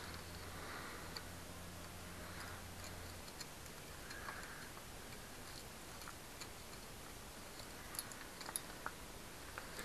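Faint, scattered small clicks and ticks of hand work on a bicycle pedal, a few more together near the end, with a low steady hum during the first three seconds.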